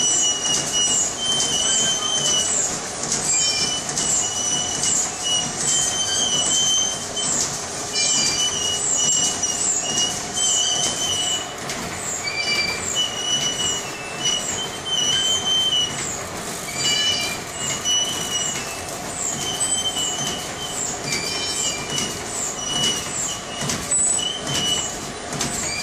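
Plastic bag making machine with a retrofitted servo drive running continuously: a fast, even mechanical clatter of its repeating stroke, with brief high-pitched whines that come back every second or two.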